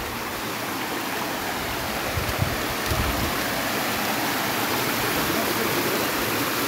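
Rushing water of a rocky hill stream spilling over boulders in small cascades, a steady noise.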